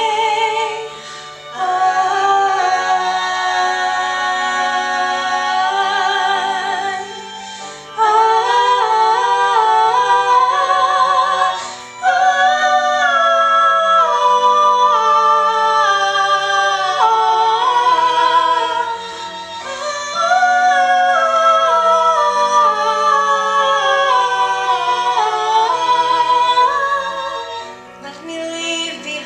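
Two female voices sing a ballad duet through stage microphones in phrases, with short breaths between lines. Under them runs an accompaniment of held low notes that change every second or two.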